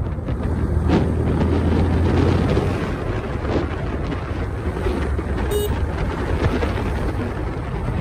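Motorcycle on the move: a steady engine hum under wind rushing over the microphone.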